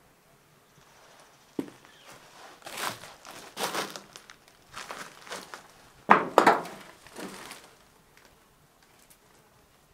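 Footsteps crunching and scuffing over dry debris on a cluttered barn floor, with one sharp knock about a second and a half in and the loudest crunches about six seconds in.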